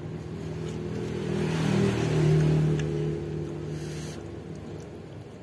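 A motor vehicle passing by: its engine swells to a peak about two seconds in, drops slightly in pitch, then fades away.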